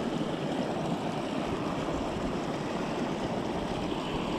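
Small mountain creek rushing over a little cascade close by: a steady wash of running water.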